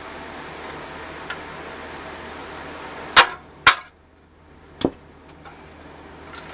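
Hammer blows on the pressed-steel body of a vintage Tonka front loader: two sharp metal strikes in quick succession, the first the loudest, and a third about a second later, over a steady background hum.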